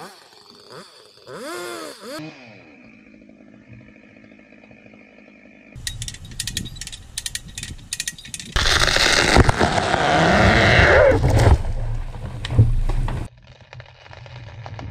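A chainsaw revs up and down, then settles into a steady idle. About six seconds in, the konara oak's wood cracks sharply several times, then the whole tree crashes down through its branches with heavy thuds.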